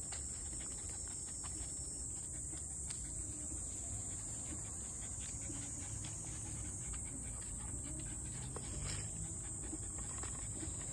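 Insects buzzing: a steady, high-pitched chorus that does not let up. Under it are faint scuffs and taps of footsteps on rock and dry leaves.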